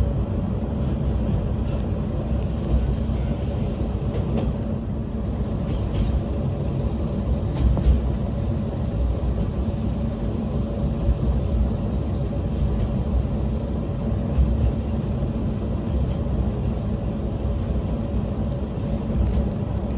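Steady low rumble of a diesel railcar running along the line, heard from inside the car, with a steady hum over it and a few faint clicks from the wheels and track.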